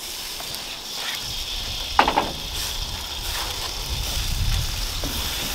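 Green beans in oil sizzling in a perforated grill pan over hot charcoal, a steady hiss. A brief clatter about two seconds in as they are stirred with a wooden spoon.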